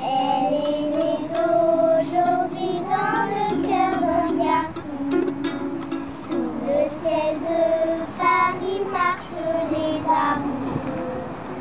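Music with a high voice singing a melody over sustained lower notes.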